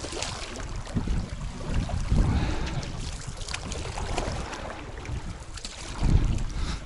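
Wind buffeting the microphone: a gusty low rumble that swells and fades, with a few light clicks over it.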